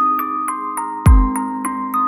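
Soft background music: bell-like mallet notes over held tones, with one deep kick-drum hit about a second in and light high ticks.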